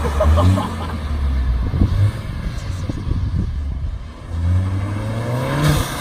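Volkswagen Golf Mk7 1.8 TSI turbo four-cylinder through a Rev9 cat-back exhaust: the engine note eases off with a few short crackles about two seconds in, then the car accelerates again, the note climbing in pitch near the end.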